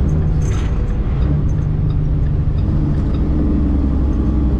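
International ProStar semi-truck's diesel engine running with road noise, a steady low drone heard inside the cab. The engine's tones shift slightly in pitch partway through.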